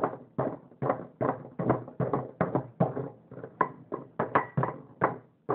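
Block of ice being chipped at with a hand tool, sharp knocks coming about two to three times a second.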